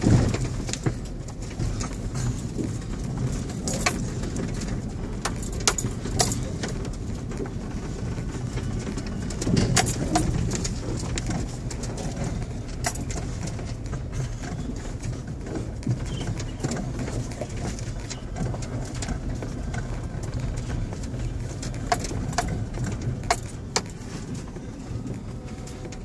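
Low steady rumble of a vehicle's engine and tyres, heard from inside the cabin as it drives slowly, with frequent sharp rattles and knocks as it jolts over a rough dirt track.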